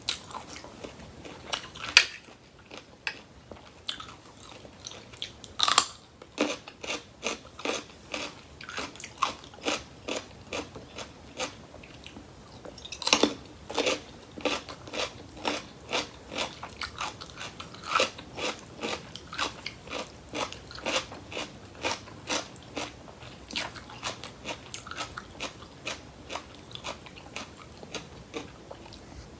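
Close-miked chewing of a crunchy salad with crisp raw vegetables: a steady run of crisp crunches about two a second, with louder bites about 2, 6 and 13 seconds in.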